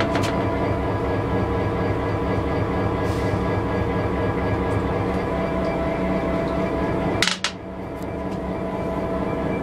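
Steady drone of the EMD SD60 locomotive's two-stroke V16 diesel running, heard from inside its toilet compartment. About seven seconds in there is a sharp clunk as the toilet lid is lifted, and the drone dips briefly before building back up.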